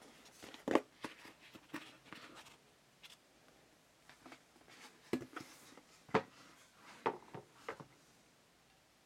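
Handling noise of a chef knife being lifted out of its box and turned in the hand: scattered soft clicks, knocks and scrapes against the box. The sharpest knocks come about a second in and again around six seconds.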